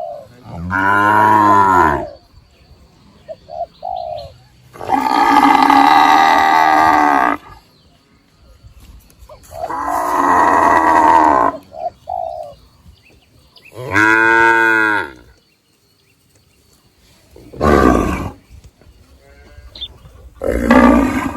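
Cattle mooing over and over: six loud moos, the longest lasting over two seconds, with quiet gaps between. Faint bird chirps come between the moos.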